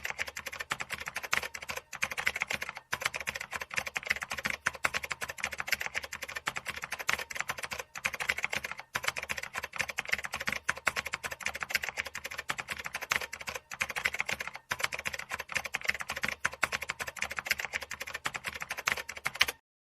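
Dense, rapid clicking that runs on steadily with brief pauses every second or two, then cuts off suddenly near the end.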